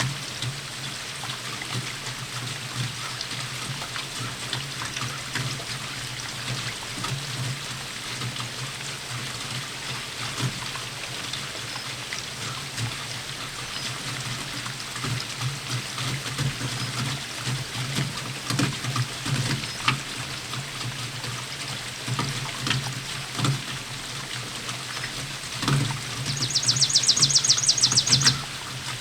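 Steady rainfall with scattered drips and trickling runoff, over a steady low hum. Near the end comes a short, fast, high-pitched trill that lasts about two seconds.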